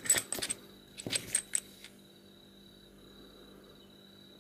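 Small high-speed steel lathe tool bits clinking and rattling as they are handled, a quick run of sharp metallic clicks in the first couple of seconds. After that, only a faint steady high whine and low hum.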